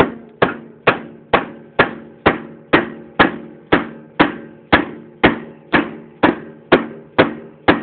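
Steady mallet blows, about two a second, each followed by a short metallic ring, driving at a stuck rear axle on a 1987 Honda Magna shaft-drive motorcycle that hardly moves.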